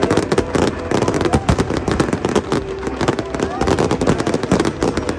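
Fireworks going off in a rapid crackling barrage, many sharp cracks and bangs a second without a break.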